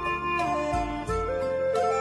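Background music: a flute-like melody of held notes that slide from pitch to pitch, over a low bass and light, regular beats.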